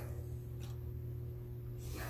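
Steady low hum, with two faint knocks as the opened laptop chassis is handled and tilted.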